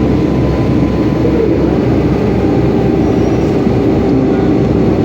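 Boeing 757-200 airliner, heard as a loud, steady rumble of engine and airflow noise with a constant hum.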